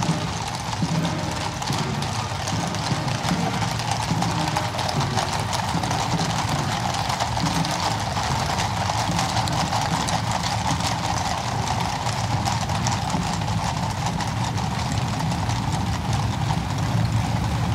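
Hooves of a column of Garde républicaine cavalry horses clip-clopping on the cobblestone paving, a dense run of overlapping hoofbeats. Near the end, the engines of police motorcycles join in as they ride past.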